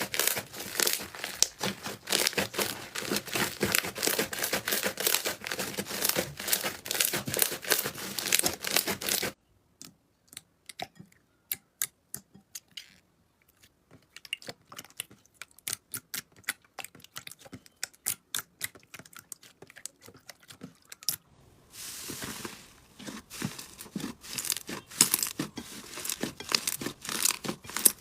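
Slime being squeezed and stretched by hand, giving rapid crackling clicks and pops. About nine seconds in the clicking thins to scattered pops, and a little after twenty seconds it grows dense again over a soft hiss.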